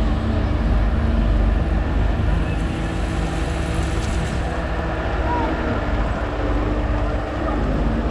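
Excavator engine running steadily, with a few held low engine tones over a constant low hum.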